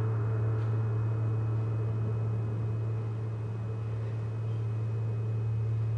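A steady, deep drone from the performance's music, one low tone held without a break, with fainter higher tones over it. It is the whistle-like sound that the piece's notes say rings out through the room.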